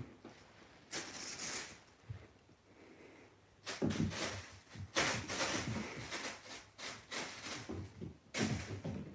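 Thin plastic bag rustling and crinkling as a kitten bats at it and gets tangled in it. There is a short burst about a second in, then almost continuous rustling from about four seconds in.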